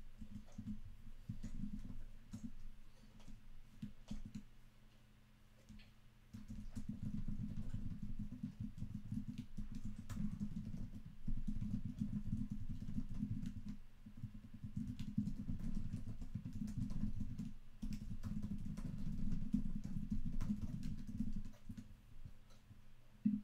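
Someone typing on a computer keyboard in stretches of rapid key clatter, with a lull about five seconds in and another near the end.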